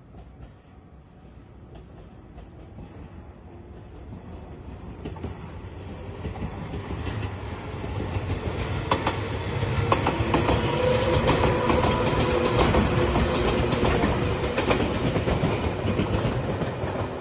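An electric passenger train approaching and passing close by. It builds up steadily over the first several seconds, then runs loud with wheels clattering over the rail joints.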